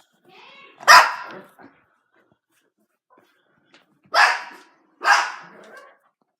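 A dog barking three times: once about a second in, then twice more a second apart near the end, with a fainter whine just before the first bark.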